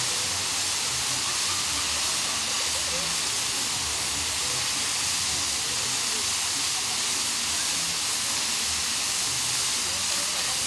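A long row of ground-level firework fountains (gerbs) spraying sparks with a steady, continuous hiss.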